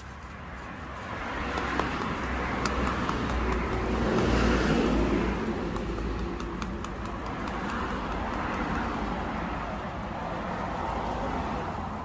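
A motor vehicle running nearby, a broad rumble that swells to its loudest about four to five seconds in and then holds steady.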